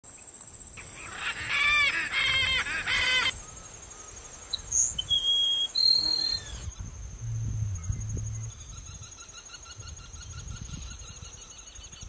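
Birdsong: a bird gives a quick run of loud, arching calls for a couple of seconds, then a sparrow sings a few short, clear, high whistled notes around the middle. Under it runs a steady, very high insect buzz.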